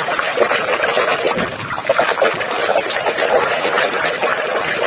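Water splashing and sloshing continuously as a toy is scrubbed by hand in a basin of water.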